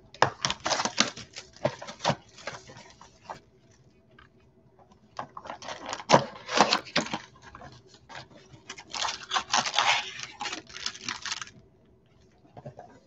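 Plastic wrapping and cardboard packaging of a trading-card box crinkling and tearing as it is unwrapped and opened by hand, in three spells of crackling with short pauses between.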